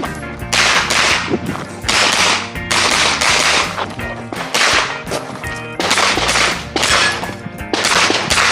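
Pistol-caliber carbine firing a rapid string of about a dozen shots, spaced half a second to a second apart, each trailing off briefly.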